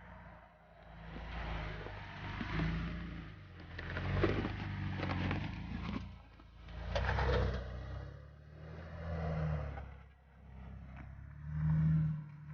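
Off-road vehicle engine working at low speed, its hum swelling and easing several times as it revs, with crackling and crunching from tyres over rock and gravel in the middle.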